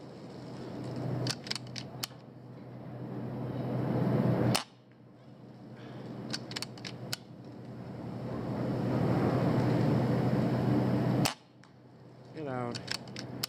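Two shots from a PCP air rifle (Kral Puncher), about four and a half seconds in and again about seven seconds later. Each shot is a sharp crack followed a second or two later by a few lighter clicks. The background noise swells steadily between shots.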